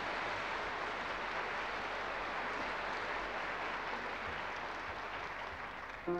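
Audience applauding steadily, the clapping easing off a little near the end.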